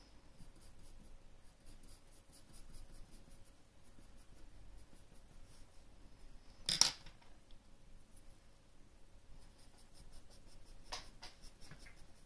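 Graphite pencil scratching on drawing paper in many short, light shading strokes. A single sharp knock about seven seconds in is the loudest sound, and a brief clatter of clicks comes near the end as the pencil is swapped.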